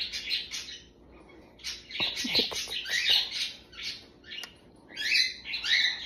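Cockatiel giving soft, raspy chirps and chatter in several short bouts.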